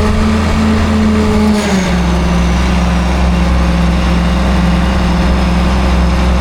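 A large engine running steadily. About one and a half seconds in, its speed drops a little and it settles at a slightly lower steady pitch.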